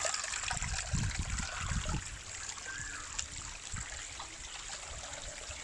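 Shallow mountain spring water trickling over rocks and leaf litter, a steady hiss, with a few low rumbles in the first two seconds.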